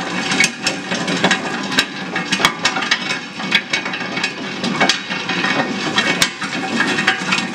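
Locomotive 1000 nut-cracking machine running steadily while it strips the fibrous husks from tropical almonds, with irregular sharp cracks and clicks from the nuts and husk pieces.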